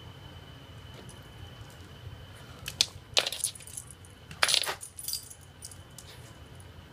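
Dog's metal collar tags jingling in about three short bursts near the middle, as the dog moves.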